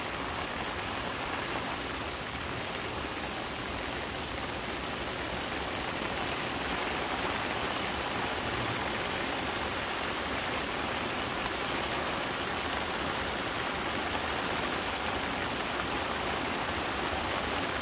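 Rain falling steadily, a constant hiss that grows a little heavier about six seconds in, with two brief ticks.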